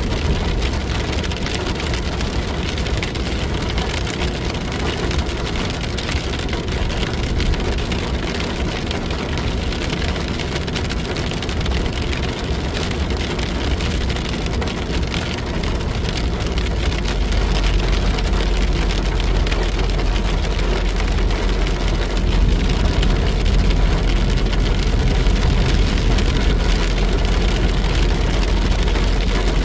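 Steady rain falling, with a low vehicle and road rumble underneath that grows louder a little past halfway.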